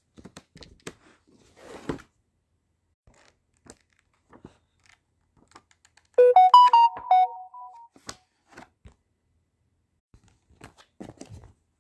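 Pages of a large paperback book being flipped by hand, with soft paper rustles and light taps now and then. About six seconds in, a short run of several clear piano-like notes lasting about a second and a half is the loudest sound.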